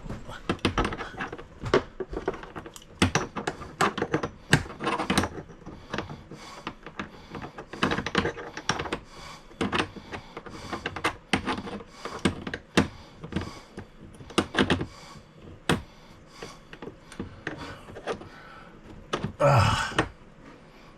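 Irregular clicks, taps and thunks of hands working hose fittings and a connector in the cramped space behind an RV toilet, with a short breathy exhale near the end.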